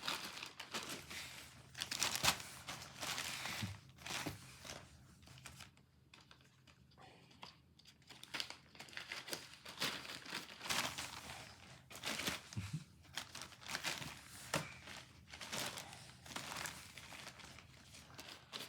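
A cat moving about in a bag, crinkling and rustling it in irregular spells, with a quieter pause about a third of the way in.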